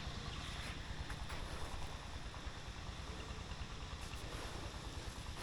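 Wind rumbling on the microphone: a steady low noise with no distinct events.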